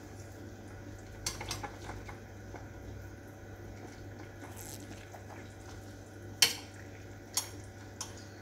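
Metal spoon clinking against a stainless steel saucepan as cooked dumplings are scooped out of the stock. A few light clinks come about a second in, then two louder, sharp clanks and a softer one near the end, over a steady low hum.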